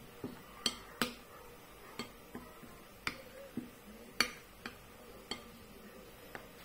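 A metal spoon scraping cake batter off the sides of a glass bowl, clicking against the glass about a dozen times at uneven intervals.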